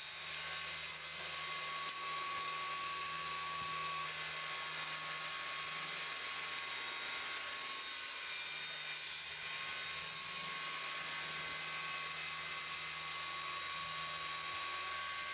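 Table saw running steadily, a constant motor hum with a high whine from the spinning blade.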